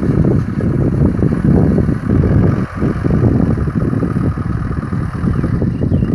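Kubota M6040 SU tractor's diesel engine running steadily.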